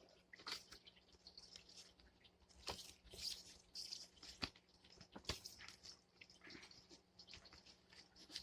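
Faint rustling and crinkling of paper pamphlets and certificate cards being handled, with scattered light clicks, a little louder about three seconds in.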